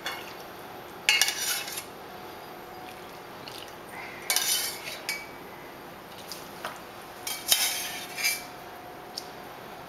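A metal ladle clinking and scraping against a stainless steel saucepan and plates in three short bursts, as pan juices are scooped out and spooned over the meat.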